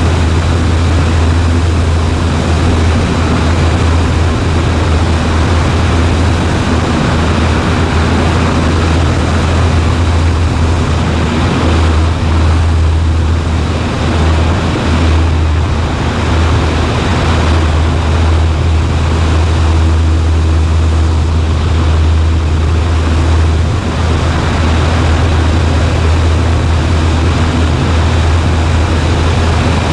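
Cessna 140A's piston engine and propeller running in flight, a loud, steady drone.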